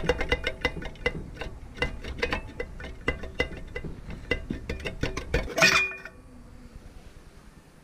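Steel exhaust baffle rattling and clinking inside a Yamaha XJR1300 muffler as it is worked loose with locking pliers, the metal ringing after each knock. About five and a half seconds in comes one loud metallic clank as the baffle comes free, then only faint scraping.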